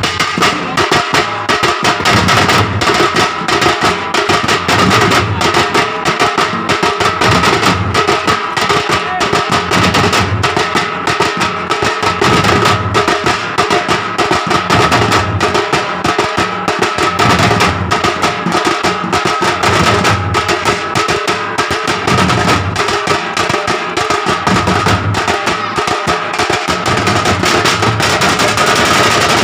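Teenmaar drumming: a band of drums, including dappu frame drums, beating a loud, fast, dense rhythm without pause, with a steady high held tone running through it.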